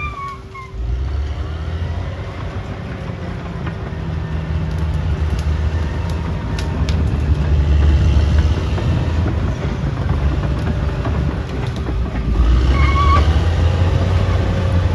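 Crawler bulldozer's diesel engine running steadily under load, rising in level around the middle and again near the end, with a few sharp metallic clanks around the middle.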